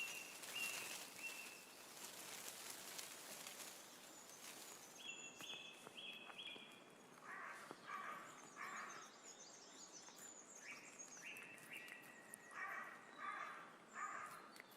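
Faint forest ambience: small birds calling in short, repeated notes in groups of two to four, over a soft hiss that fades about five seconds in.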